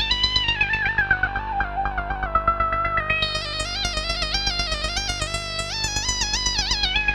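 Yamaha CS10 and CS01 analog monosynths playing a stepping melodic line over a steady low drone and a quick drum-machine pulse. From about three seconds in, the filter opens and the tone turns much brighter, then closes again near the end.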